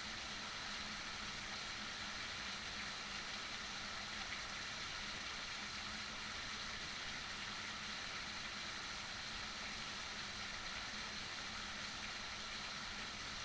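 Heavy rain falling steadily, an even hiss with a faint low hum underneath.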